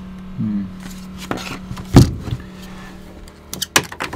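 Knocks and clatter from handling a plastic-bodied water pump against wooden boards: one loud knock about two seconds in and a few sharp clicks near the end, over a steady low hum that stops soon after the knock.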